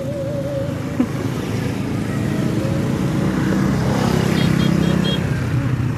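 Street traffic with a motorcycle engine running close by, growing louder in the second half, and four short high beeps near the end.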